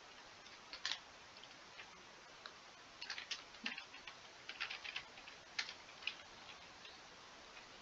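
Faint, sparse keystrokes on a computer keyboard as a word is slowly typed: a single click about a second in, then irregular key clicks from about three seconds in.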